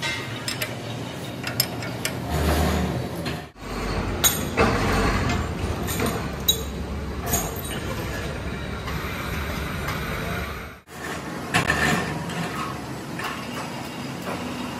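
Metal clinks and knocks from a spanner and steel clamps on a large manual lathe, as a cast gear blank is bolted to the faceplate, over a steady workshop rumble. The sound breaks off abruptly twice and picks up again.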